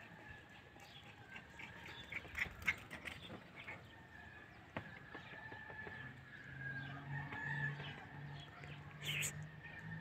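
Faint outdoor background with bird calls, with a few sharp clicks about two to three seconds in and a short hiss about nine seconds in.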